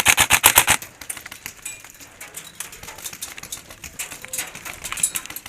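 Airsoft electric gun firing a rapid full-auto burst of sharp clicks that stops about a second in, followed by fainter scattered shots.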